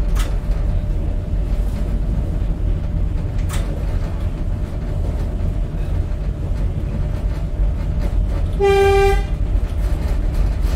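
Tyne and Wear Metrocar running along the track with a steady low rumble and a faint steady whine, two sharp clicks in the first few seconds, then one short horn blast about nine seconds in: a warning sounded on approach to the level crossing just ahead.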